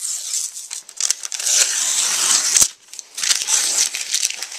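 Protective plastic film being peeled off a round plastic light-fixture diffuser, crackling and crinkling in two long stretches with a short break and a sharp click near the middle.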